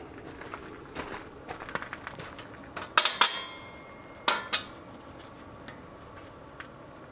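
Scattered light clicks and handling noises, then two pairs of sharp, ringing metal clinks, about three seconds in and again a second later: metal parts of the tractor's grill guard knocking together as they are worked on by hand.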